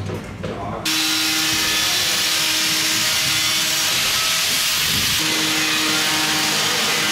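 Steady loud hiss with a few faint held tones underneath, starting abruptly about a second in.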